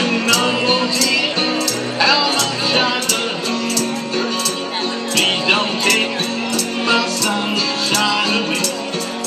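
Karaoke backing track playing an instrumental passage with a steady beat, with a hand-held tambourine shaken in time about twice a second.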